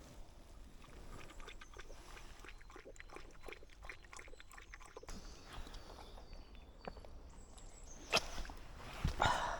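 Faint sounds of a dog close by, with a run of light clicks in the first half and a sharper knock near the end.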